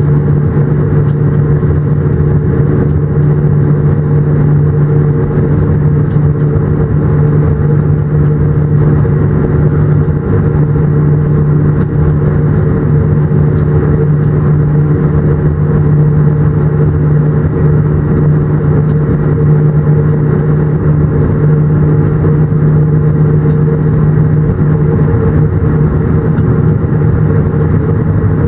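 Locomotive running along the line, heard from inside its cab: a steady, unchanging drone made of a low hum with a higher steady tone above it.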